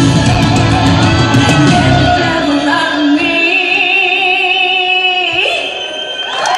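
Live symphonic metal band playing at full volume. About three seconds in, the drums and bass drop out, leaving a long, high sung note with vibrato over a held keyboard chord. Near the end a rising sweep leads the full band back in.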